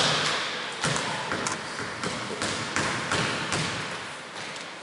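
Basketball bouncing on a hardwood gym floor, a string of irregularly spaced bounces, each echoing in the hall and growing fainter toward the end.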